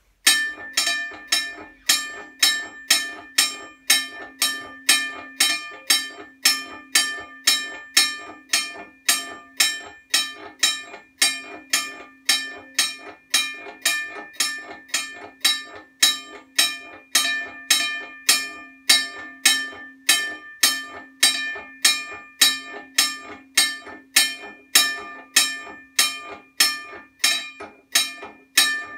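US&S (Union Switch & Signal) teardrop railroad crossing bell ringing continuously. Its electric striker hits the gong in a fast, even rhythm, and each strike leaves a bright ringing tone.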